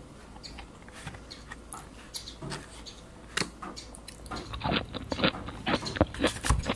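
Close-up eating sounds: chewing with scattered clicks of a metal spoon and fork against a kraft paper takeaway box. From about four seconds in, a denser run of louder crackles and knocks as the paper box is handled close to the microphone.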